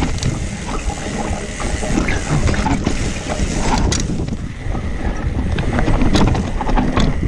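A mountain bike rolling downhill on a wet dirt trail: a steady rumble of tyres and wind buffeting the microphone, with scattered clicks and rattles from the bike over roots and rocks.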